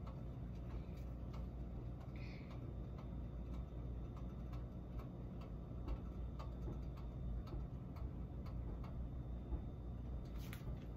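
Oil heating in a steel kadai on an electric coil burner: faint, irregular ticking and clicking over a steady low hum.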